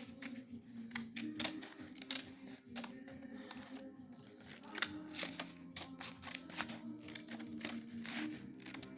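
Irregular small clicks, snips and rustles of craft materials such as paper and scissors being handled, with one sharper click about five seconds in.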